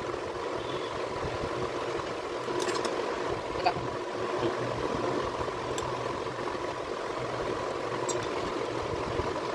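A steady background hum, with a few light clicks from a metal spoon against a plate and a stainless-steel mixer jar as powder is spooned in.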